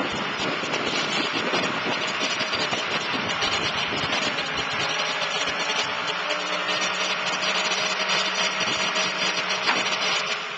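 A 2007 Ford LCF truck's V6 diesel engine runs steadily while the hydraulics drive the Jerr-Dan wheel-lift up and in under the rollback bed. The sound cuts off abruptly at the end.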